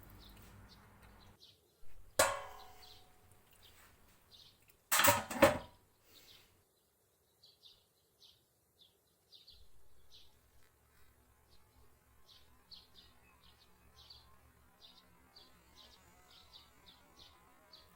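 Two loud clanks of kitchenware, about two seconds and five seconds in, the first with a short ring. Then faint, quick bird chirps repeat steadily.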